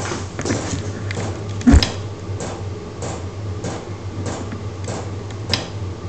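Chinese 12-volt diesel air heater running: a steady low hum with its fuel pump ticking evenly, about three ticks every two seconds. A single heavy thump sounds about two seconds in.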